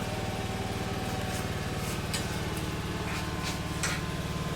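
Small engine idling steadily with a fast, even pulse, and a few faint sharp ticks over it.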